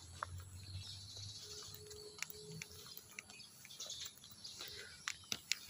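Quiet outdoor ambience with faint bird chirps, and a few sharp clicks near the end.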